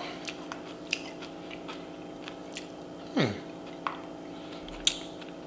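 Close-miked chewing: soft wet mouth clicks and smacks scattered through, with one short hum from the throat that falls in pitch about three seconds in.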